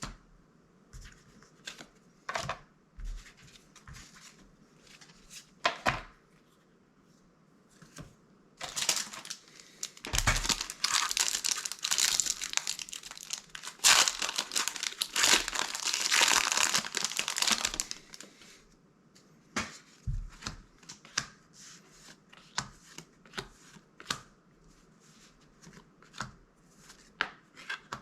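Foil wrapper of a Magic: The Gathering booster pack crinkling and tearing as it is opened, for about ten seconds in the middle. Light clicks and taps of cards being handled come before and after.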